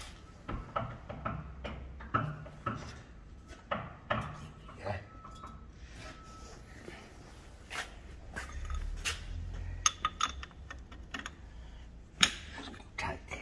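Metal tools and parts clinking and knocking irregularly at a metal lathe, over a low steady hum that swells briefly about two-thirds of the way through.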